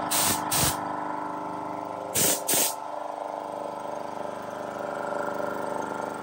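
Toshiba Bebicon air compressor running steadily: its electric motor belt-drives the piston pump with an even mechanical drone. Four short hissing spurts of air come in the first three seconds.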